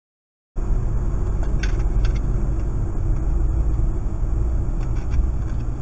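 Steady low rumble of a car's engine and tyres on a snowy road, heard from inside the cabin through a dash camera, with a few faint ticks. It starts abruptly about half a second in, out of silence.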